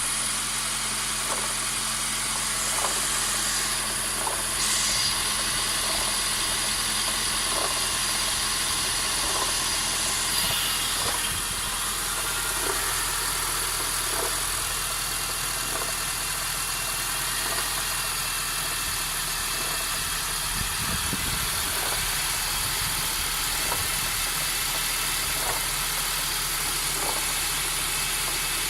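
Honda Accord's R20A3 2.0-litre four-cylinder engine idling steadily, with a faint irregular tick or knock every second or two. The owner cannot tell what causes it.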